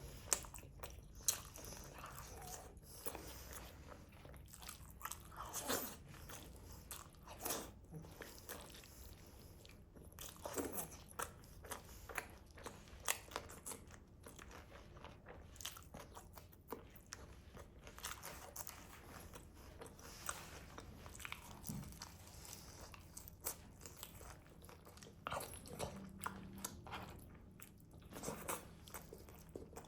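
Close-up eating sounds of grilled chicken: irregular wet bites, smacks and chewing with crisp, crunchy clicks, several times a second at times.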